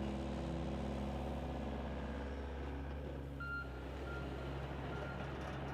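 Heavy equipment engine running steadily, with a reversing alarm starting to beep about halfway in, in short evenly spaced beeps.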